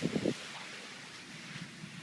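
Steady wind rushing over the microphone in a strong wind.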